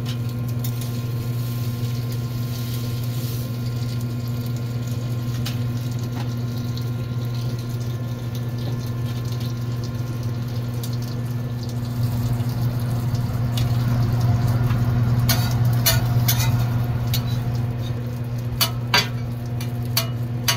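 Egg patties and toast frying on a flat griddle, with a faint sizzle over a steady low hum. In the last few seconds a metal spatula clinks and knocks against the griddle plate.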